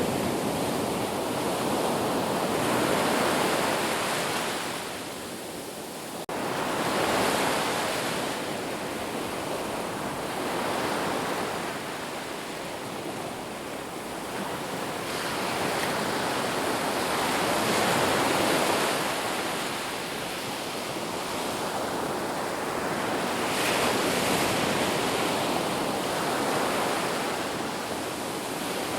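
Sea waves breaking and washing on a shore: a continuous surf that swells and eases again every few seconds.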